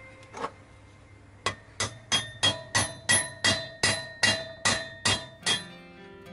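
Hammer tapping a socket used as a drift, driving a new bearing into the heat-warmed aluminium crankcase of a Honda CL50. One tap comes first, then about a dozen ringing metal taps follow at roughly three a second.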